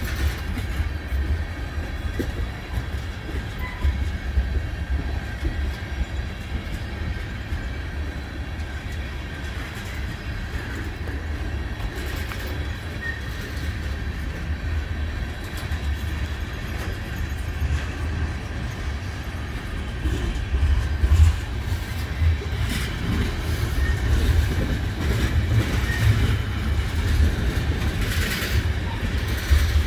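Freight train of tank cars rolling past: a steady low rumble of steel wheels on rail, with clacks over the rail joints that grow louder and more frequent in the last third.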